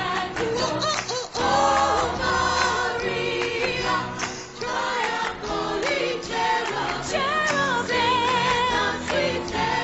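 A choir singing with instrumental backing, the voices holding notes with vibrato.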